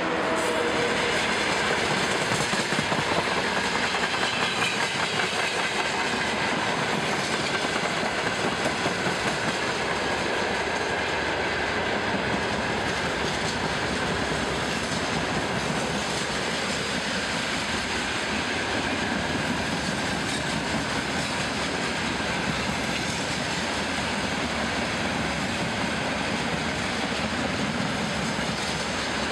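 Freight wagons of a long freight train rolling past, a steady rumble and rattle with the wheels clacking over the rail joints, a little louder in the first third.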